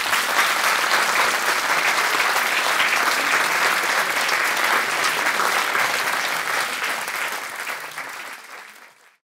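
Audience applauding: dense, steady clapping that tapers off near the end and then stops abruptly.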